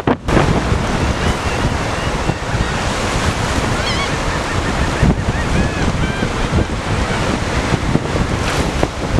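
Seagulls calling in short, repeated rising-and-falling cries, heard over steady surf and strong wind buffeting the microphone.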